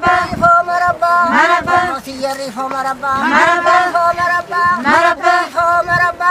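A woman singing a traditional Oromo song in a high voice: each phrase opens with a rising swoop into a held note, and the phrases repeat about every one and a half to two seconds.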